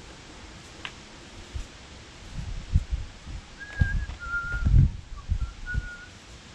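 Dull thumps and knocks of hands working on loader parts, loudest about four to five seconds in. Over them come three or four short high whistle-like notes.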